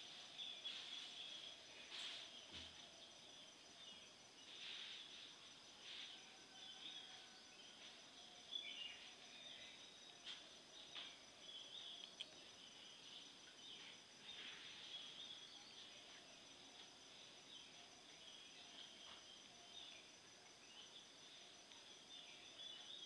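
Near silence: faint room tone with faint, irregular high chirping in the background and a few soft clicks.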